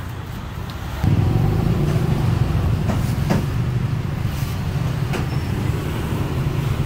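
A steady low engine rumble that starts abruptly about a second in and keeps going, with a few sharp clicks over it; the loudest click comes at the very end.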